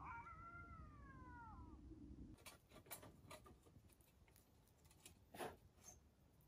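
One long meow-like animal call that falls in pitch over about two seconds, followed by a few faint clicks and a soft knock.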